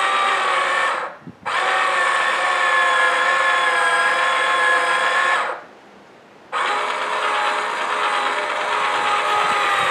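Small electric motor of a toy pottery wheel running with a steady whine. It cuts out briefly about a second in and again for about a second past the middle, starting up again each time.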